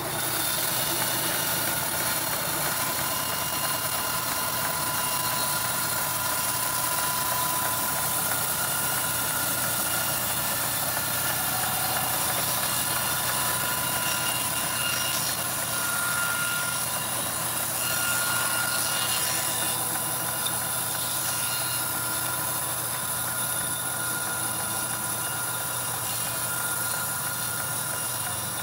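Band sawmill blade cutting through a mahogany log: a steady mechanical running sound with a high hiss and several steady high tones.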